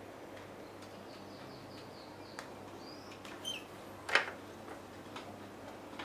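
Scattered sharp clicks, the loudest about four seconds in, with a run of faint high chirps in the first half.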